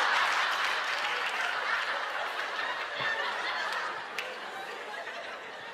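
Studio audience laughing, loud at first and gradually dying down.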